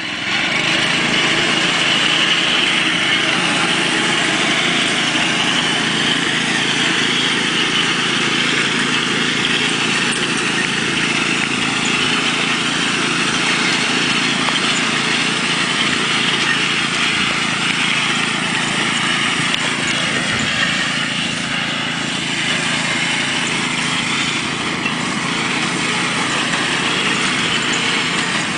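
7 1/4 inch gauge ride-on backyard train locomotive running along its track, with a steady small-engine drone.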